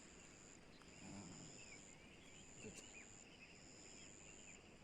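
Faint chorus of insects trilling on high, steady notes, each held for a second or so and overlapping, with faint short bird chirps beneath.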